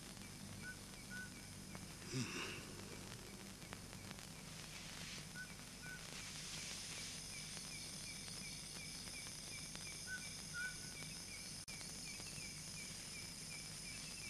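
Faint outdoor night ambience of insects chirping steadily, about three chirps a second, with a short paired call every few seconds. There is a brief louder rustle about two seconds in.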